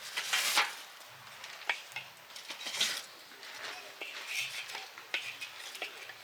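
Light clinks and scrapes of cookware and utensils, with short louder noisy bursts about half a second and nearly three seconds in.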